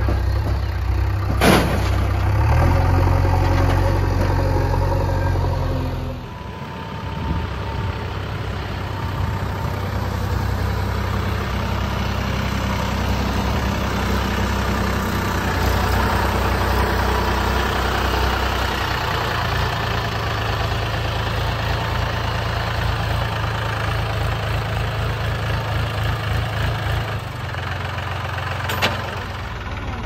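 Diesel tractor and backhoe loader engines running steadily, with a sharp knock about a second and a half in. About six seconds in the sound changes to a single tractor engine, which grows stronger about two-thirds of the way through.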